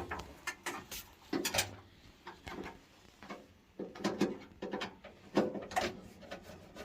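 Irregular clicks, taps and knocks of hand tools and small metal parts being handled during boiler work.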